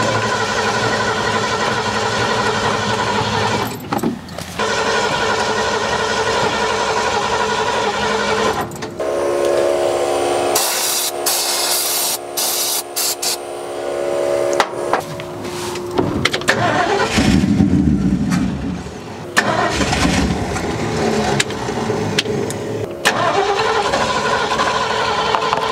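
1972 Ford F100's engine cranking over on the starter in long spells without catching, because fuel is not reaching the carburetor, as the owner believes. Midway there is a few seconds of hissing aerosol spray into the carburetor.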